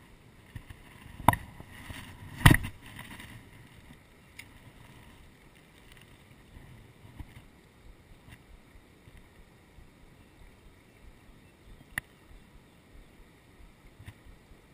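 Fishing rod and reel handling noise while a lure is retrieved: two sharp knocks in the first few seconds, then faint regular ticks about twice a second as the reel is cranked.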